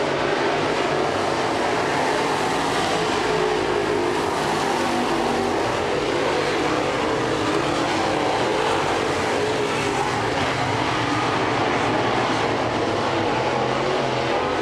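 Several crate late model dirt-track race cars running at speed, their V8 engines blending into one steady, loud drone.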